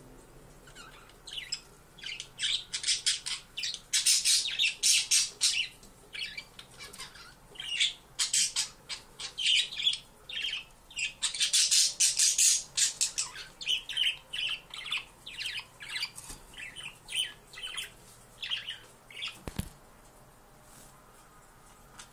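Siberian chipmunk giving rapid runs of short, high-pitched chirps in several bouts, with brief pauses between them, dying away near the end.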